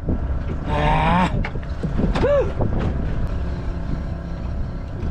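Steady low rumble of a fishing boat at sea, with a voice giving two short exclamations about one and two and a half seconds in.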